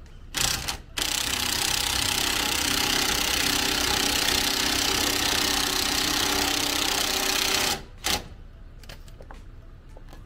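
An electric motor working the camper's jacks: a short burst, then a steady run of about seven seconds that stops abruptly, then another short burst.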